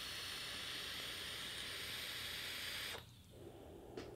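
Long draw on a freshly squonked Wotofo Profile RDA on a squonk mod: a steady hiss of air pulled through the atomizer while the coil fires, cutting off about three seconds in. The wick is heavily saturated, which makes the draw spitty.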